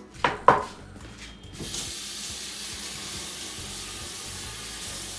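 Two quick knocks of a spoon against a mixing bowl while chicken is turned in its seasoning, then a kitchen tap running in a steady hiss, turned on about a second and a half in and shut off at the end.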